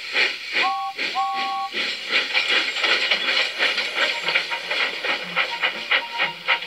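Steam locomotive chuffing steadily as it gets under way, with two short two-note whistle toots about a second in.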